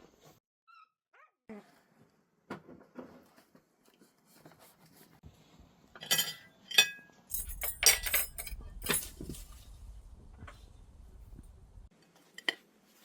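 A dog giving a few short vocal sounds around the middle, among scattered clinks and knocks.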